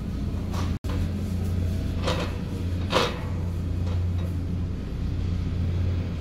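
Shopping cart being pushed: a steady low rumble of the wheels, with the wire basket and its contents rattling and two sharper clatters about two and three seconds in.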